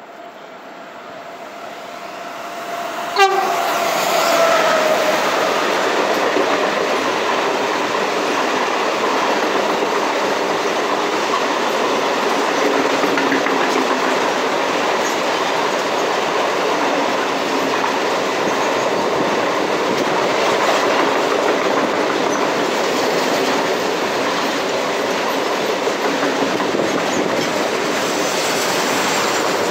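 Renfe series 253 Bombardier electric locomotive hauling a container freight train past. It grows louder as it approaches and passes with a sharp gust about three seconds in, with a steady tone that drops in pitch as it goes by. Then the container wagons roll past in a loud, even noise of wheels on rail.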